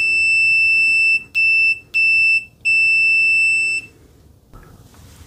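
MUSTOOL MDS9208 multimeter's continuity beeper sounding as the test leads make contact. It is one steady, high-pitched, super loud tone that breaks into four beeps: a long one, two short ones, then another long one ending near four seconds in.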